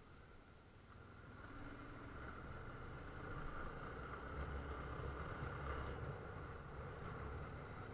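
Car driving, with engine and road noise growing louder from about a second in, as if the car is picking up speed.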